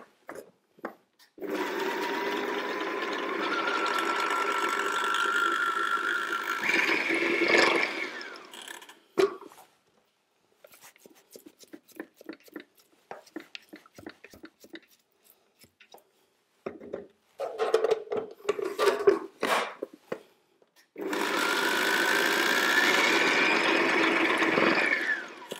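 Kenwood stand mixer's food-processor attachment blending chickpeas into hummus. It runs for about seven seconds and then stops. A spatula scrapes and taps around the plastic bowl to clear paste stuck up the sides, and after a few short bursts the processor runs again for about four seconds, its whine rising.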